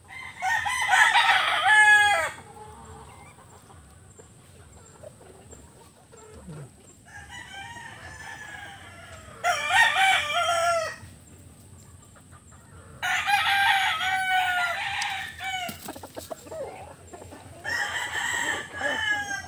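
Roosters crowing: four long crows, about half a second, ten, thirteen and eighteen seconds in, each about two seconds long.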